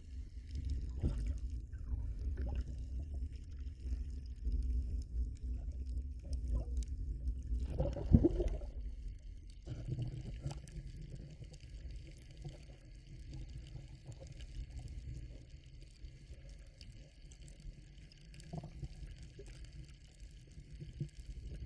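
Muffled underwater sound of water moving against a submerged camera: a low rumbling wash, with one loud swish about eight seconds in. After that it settles quieter, with faint steady high tones above the low wash.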